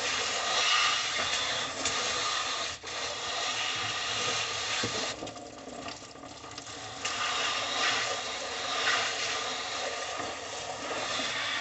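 A handheld sprayer sends a steady hiss of water spray onto a plastic table and raw pig intestines. The spray stops about five seconds in and starts again about two seconds later.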